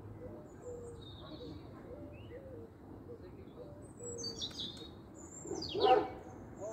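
Wild birds calling: scattered short high chirps and repeated short lower notes, with one louder call about six seconds in.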